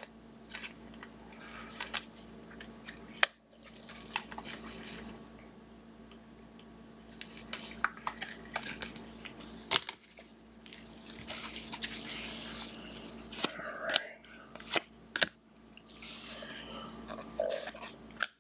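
Trading cards and their plastic wrappers and sleeves being handled: irregular rustling, crinkling and small clicks and taps, over a faint steady low hum.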